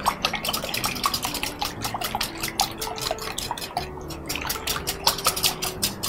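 Hand wire whisk beating eggs and milk in a glass bowl: a quick, steady run of clicking strokes against the glass, several a second, with a brief pause about four seconds in.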